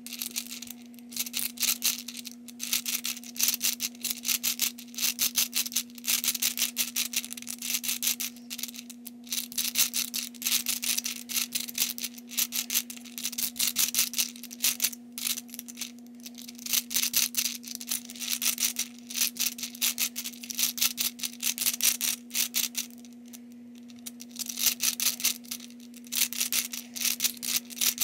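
Plastic balls of a Hungarian Rings puzzle clicking and rattling as its two interlocking rings are turned by hand, in quick runs of rapid clicks with short pauses between turns.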